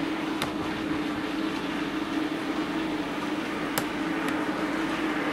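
Model pannier tank locomotive running on its track: a steady electric-motor hum with a running noise from the wheels and a few sharp clicks.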